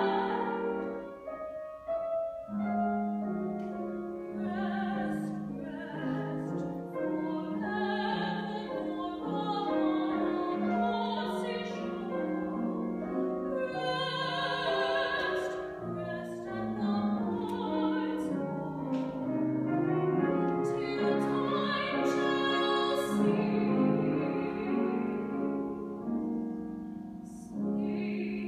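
A woman singing a classical art song in a trained, operatic voice, accompanied by a grand piano. The singing holds long notes over the piano and stops near the end, leaving the piano playing.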